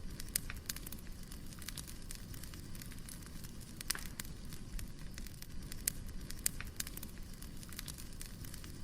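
Burning firewood crackling, with irregular sharp pops over a steady low rumble of the fire.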